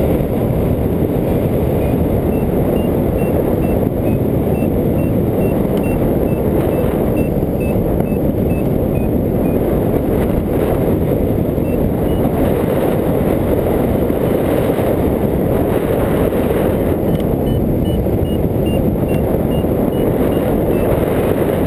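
Loud, steady rush of airflow over the microphone of a hang glider in flight. A variometer's faint short beeps, about two a second and wavering a little in pitch, run through the first nine seconds or so and come back near the end, the signal that the glider is climbing.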